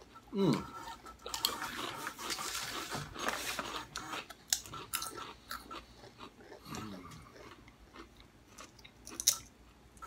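Crunching and chewing of thick kettle-cooked russet potato chips, with crisp crackling bites. A short falling hum comes just after the start and another about seven seconds in.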